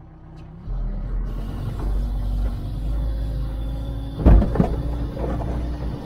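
All-terrain vehicle engine starting to pull under load, a low steady rumble, as the vehicle drives onto broken shore ice. About four seconds in comes a loud knock, the hull striking ice floes, followed by a few smaller knocks.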